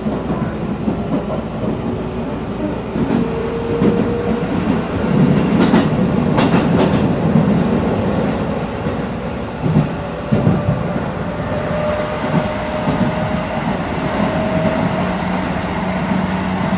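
Keisei 3050-series electric train heard from inside the car, running with a steady rumble of wheels on rail. Its VVVF inverter traction motors whine in a thin tone that rises slowly in pitch as the train picks up speed. A few sharp clacks over the rails come about six seconds in.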